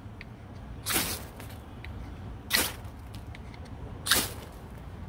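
Knife spine scraped hard down a ferrocerium rod three times, about a second and a half apart, each stroke a short sharp rasp that throws sparks.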